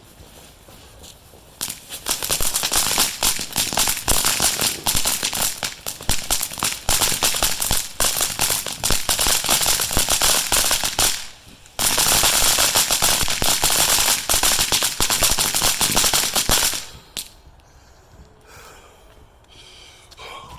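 A string of firecrackers going off in a rapid, continuous crackle of sharp bangs. It runs for about nine seconds, stops briefly, then goes on for about five seconds more before dying away.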